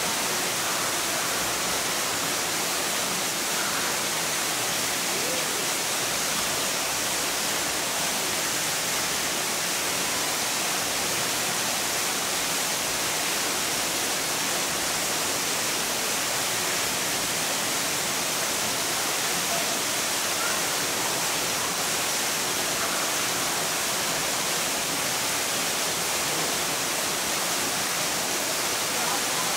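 Steady rushing water: an even, unbroken hiss with no distinct splashes or calls.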